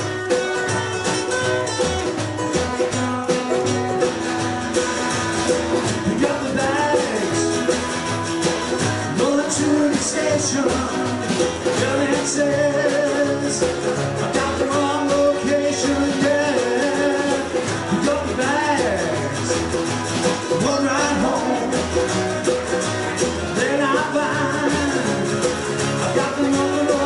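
A live rock and roll band playing, with guitars over drums, at a steady, even loudness.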